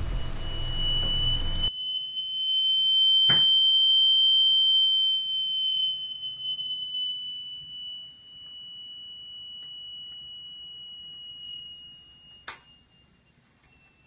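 Buzzer of a thermistor-triggered fire alarm circuit sounding a continuous high-pitched tone, the circuit activated by heat on the thermistor. The tone is loudest for the first few seconds, then weakens and sags slightly in pitch near the end, with a short click about three seconds in and another near the end.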